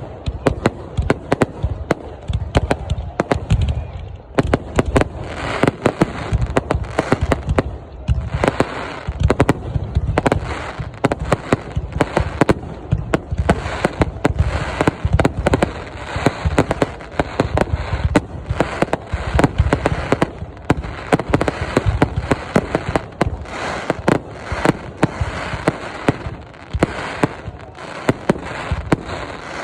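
Fireworks going off without pause: a dense run of sharp bangs, several a second.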